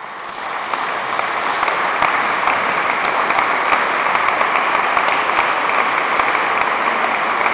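Audience applauding at the end of a solo violin piece, swelling over the first couple of seconds and then holding steady.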